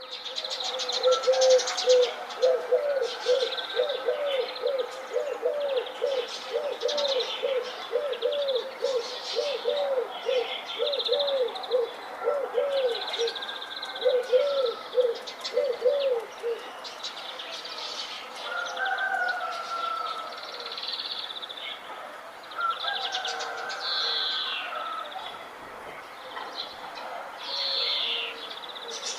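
Several birds chirping and calling in a morning chorus. A low call repeats quickly, about two notes a second, and stops about sixteen seconds in; softer wavering calls follow.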